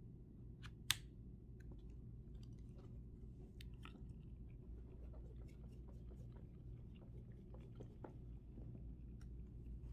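Faint handling noise: small plastic clicks and taps as a backpack mount's clamp and ball joint are fitted and turned on a handheld gimbal camera, with one sharper click about a second in. A steady low hum lies underneath.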